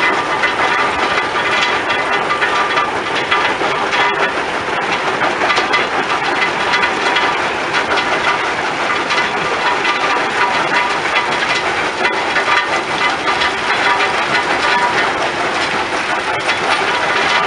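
Rock-crushing plant running: a cone crusher and conveyor belts make a steady, dense machine noise with a constant rattle of crushed stone.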